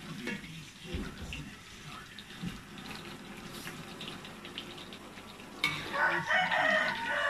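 Eggplant slices frying in oil in a wok: a sizzle with a few light spatula scrapes against the pan, suddenly growing much louder near the end.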